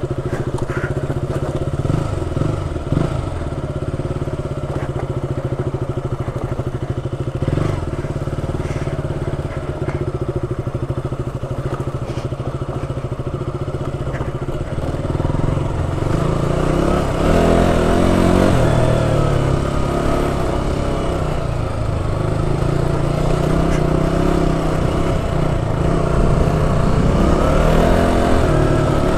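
KTM Duke 200's single-cylinder engine running steadily at low revs on a rough dirt trail, with a few knocks in the first eight seconds. From about halfway through it gets louder and the revs rise and fall repeatedly as the throttle is worked.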